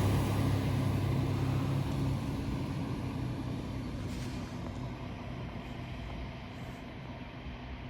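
A train moving away along the platform, its low running hum and rumble fading steadily.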